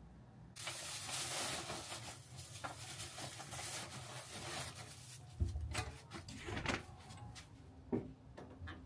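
Thin clear plastic rubbish bag crinkling and rustling as it is handled and tied shut, followed by a few dull knocks and thumps in the last few seconds.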